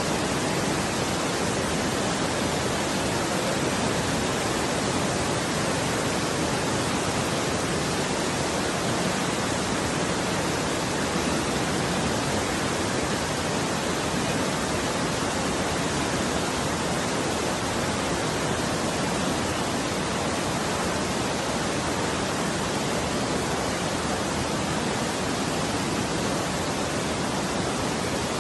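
Fast-flowing floodwater rushing along a street during heavy rain: a steady, even rushing noise with no breaks or separate splashes.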